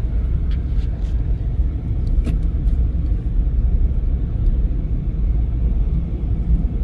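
Steady low road rumble inside a small car's cabin, its all-terrain Cooper Discoverer tyres running on a slushy, snowy highway at about 60 km/h, with a few faint ticks.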